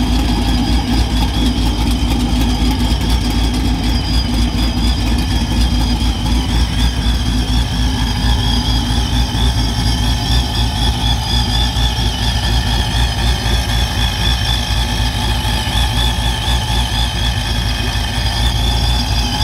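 Engine of a TorqStorm-supercharged Ram 1500 idling steadily, with a high whine that wavers slightly in pitch above the low rumble.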